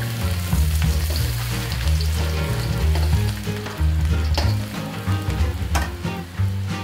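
Minced garlic sizzling and frying in hot oil in a wok, the sizzle starting as the garlic goes in. A few sharp clicks from the spatula against the wok near the middle and end.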